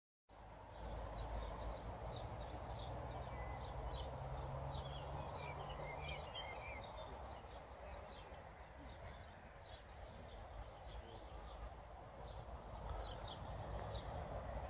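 Outdoor ambience of many small birds chirping in short repeated calls over a low rumble, with a steady low hum that fades out about six seconds in.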